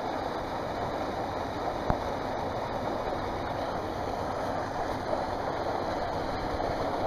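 Steady rushing of running water, like a waterpark's slides and pools, with a single sharp click about two seconds in.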